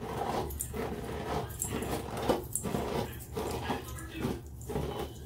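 Hairbrush dragged repeatedly through knotted natural hair to detangle it, in even strokes about two a second.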